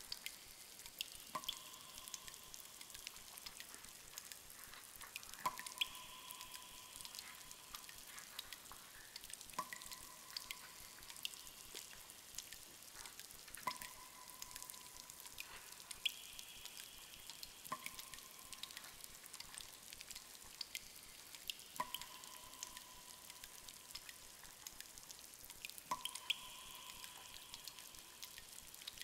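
Cave ambience recording: water dripping, faint scattered drips with a louder drop landing and ringing about every four seconds.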